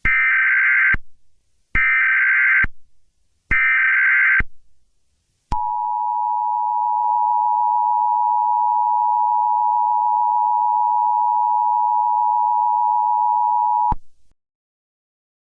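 Emergency Alert System header tones: three roughly one-second bursts of digital data tones, then the steady two-tone EAS attention signal held for about eight seconds before it cuts off. Together they mark the start of an emergency alert broadcast.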